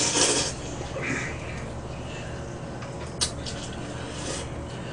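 Jjajangmyeon noodles slurped into the mouth at the start, then quieter chewing and eating noises, with one sharp click a little past three seconds in.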